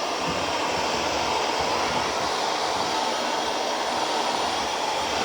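Shark Navigator Lift-Away Professional (NV391) upright vacuum cleaner running steadily with only its suction motor on and the brush roll off: an even whooshing hum.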